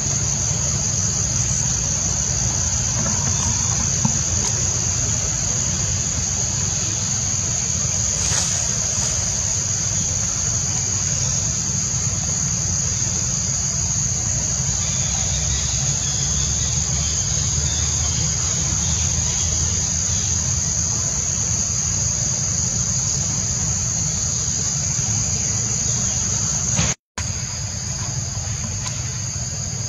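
Steady, high-pitched chorus of insects trilling, over a steady low rumble; the sound drops out for an instant near the end.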